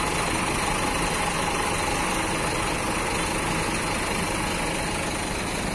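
Diesel coach engine idling steadily, an even low running sound with no change in speed.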